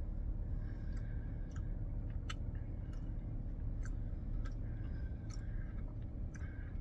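A person chewing a mouthful of cold baked beans in tomato sauce, with scattered soft wet mouth clicks.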